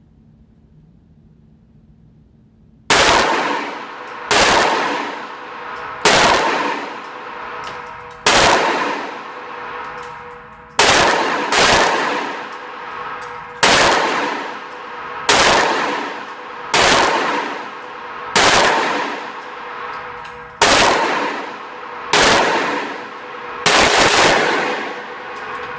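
Short-barreled AR-15 pistol fired semi-automatically: a dozen or so sharp shots at a slow, steady pace of about one every second and a half, starting about three seconds in, each followed by a long ringing echo.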